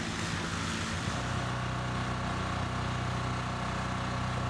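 An engine running steadily with an even hum. About a second in, the hum changes to a steadier, slightly lower pitch.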